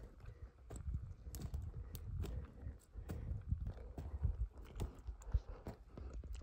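Footsteps crunching over dry twigs and forest litter, an irregular run of snaps and crackles.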